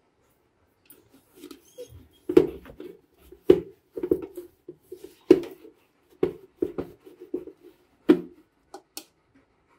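A cloth scrubbed hard against the plastic body of a mixer grinder's motor base: irregular rubbing strokes with several sharp, loud knocks as the base is handled.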